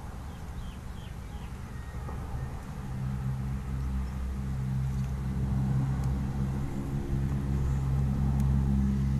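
A low, steady engine hum that grows louder from about three seconds in.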